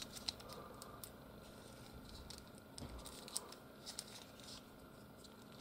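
Faint, scattered small clicks and rubbing of two plastic Trap Jaw action figures being handled and held against each other.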